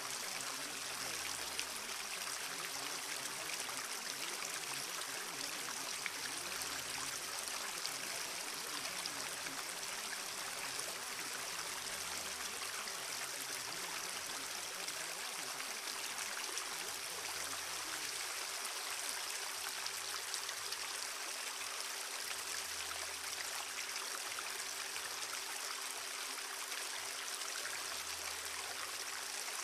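Steady rushing of a flowing stream, with a low hum that swells about every five and a half seconds and a faint steady tone beneath: the background bed of a subliminal audio track.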